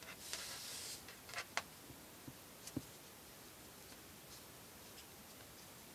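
Faint handling noises of hands working a knot in cord: a short rustle about half a second in, a few light clicks around a second and a half, and a soft low knock near the three-second mark.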